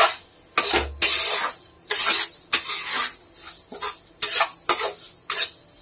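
Metal spatula scraping and stirring roasted semolina, sugar and dry fruits in ghee around a steel kadai for sooji halwa, in repeated rasping strokes about twice a second.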